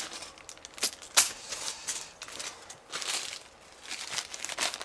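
Plastic bags of Lego parts and bubble wrap being handled, crinkling in short irregular bursts with a few sharp clicks.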